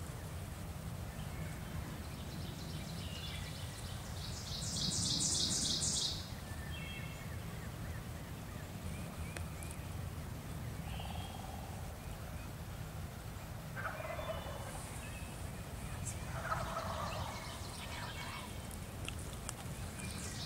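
Wild turkeys gobbling: one loud, rapid rattling call about five seconds in, with fainter calls scattered through the rest.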